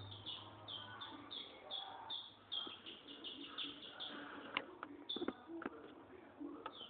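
Green-winged saltator (picharro) giving a rapid series of short, falling chirps, about three a second, for the first four seconds. Several sharp clicks follow in the second half.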